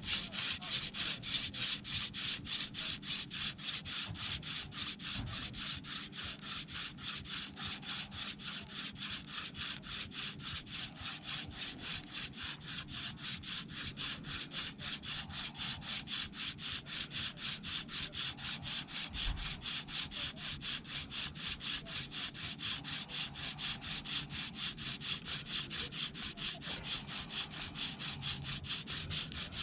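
Hand drill friction fire: a wooden spindle twirled back and forth between the palms, grinding into a wooden hearth board. It makes a fast, even scraping of wood on wood, about five strokes a second.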